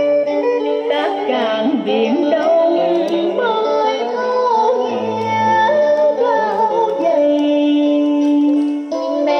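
A song with a singing voice and instrumental backing, played through the speakers of a Sanyo MR-9100 stereo radio-cassette recorder.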